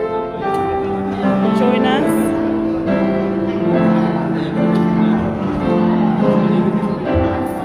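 Music: a keyboard playing slow, held chords, with singing over it.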